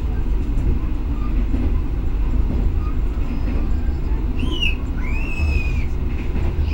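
Steady low rumble of the Argo Wilis passenger train running at speed, heard from inside a coach. A couple of short high squeals come about four and five seconds in.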